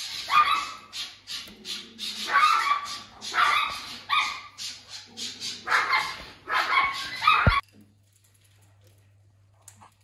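Raccoon calling with a run of short, high-pitched cries, several a second, that cut off suddenly near the end.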